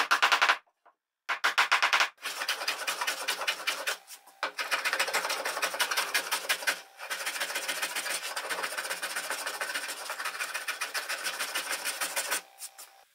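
Metal bench plane shaving a pine board, in several long scraping passes with short breaks between them, stopping about a second before the end.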